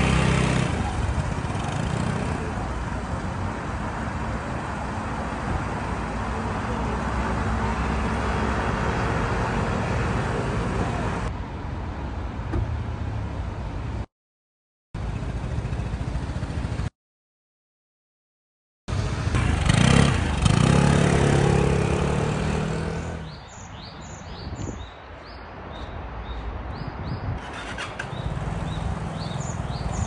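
Vespa scooter engine running with street traffic, cut into several short clips; the sound drops out twice around the middle.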